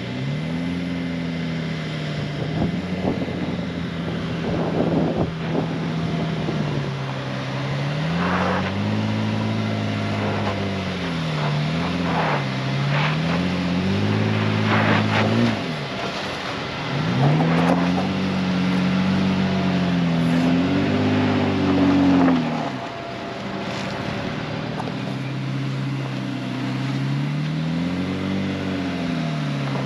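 Honda Ridgeline's V6 engine revving up and down over and over as the truck works its way up a rocky off-road climb, with a few short knocks and scrapes mixed in.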